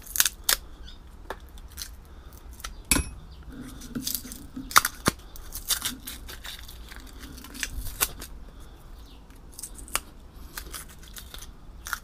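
A small screwdriver prying and scraping at a copper transformer winding from a microwave oven, working off its terminals and cardboard insulation: irregular sharp clicks and scrapes with light tearing.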